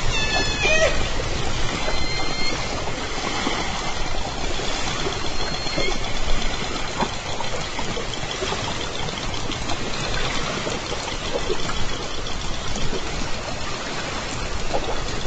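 Southern resident killer whales of J Pod calling underwater, heard through a hydrophone: a call with several stacked tones in the first second, another about 2 s in and a fainter one near 6 s. A steady rushing hiss of water noise runs underneath.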